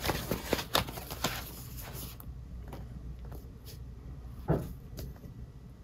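Cardboard LP record jacket being handled and turned over: a quick run of rustles and light clicks in the first two seconds, then a few scattered ticks and one louder knock about four and a half seconds in.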